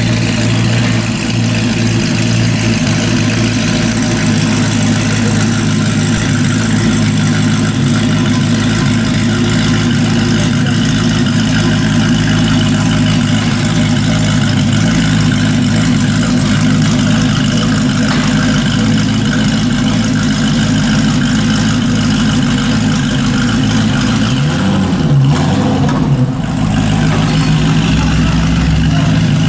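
Mazzanti Evantra's V8 engine idling steadily as the car rolls down the transporter ramp, with a brief rise and fall in revs about 25 seconds in.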